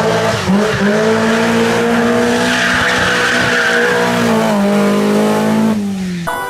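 Rally car engine held at high revs with a nearly steady note, under a hiss of tyre noise as the car slides; the engine note drops away near the end.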